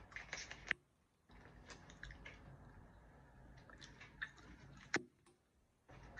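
Faint handling noise: small sharp clicks and rustling as a plastic skincare jar and other containers are picked up and handled, with one sharper click about five seconds in.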